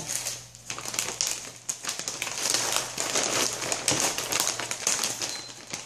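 Mylar foil bag crinkling and crackling as plastic-bagged packets of cake mix are pushed into it and the bag is handled, in a dense run of irregular crackles.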